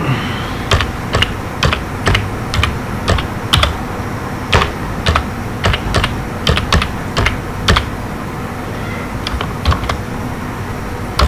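Computer keyboard keys being tapped in irregular single clicks, about one or two a second, with a pause of about a second shortly before the end.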